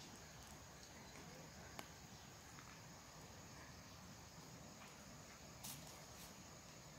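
Near silence: faint outdoor ambience with a steady high insect buzz and a few faint clicks.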